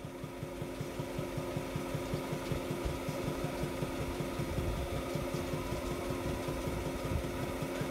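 A machine running steadily: a steady hum over a rapid low pulsing.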